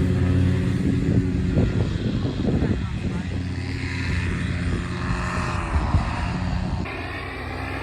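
Polini Thor single-cylinder two-stroke paramotor engine running steadily on its propeller. It is rougher from about one and a half to three seconds in, and there is an abrupt cut at about seven seconds to another run of the engine.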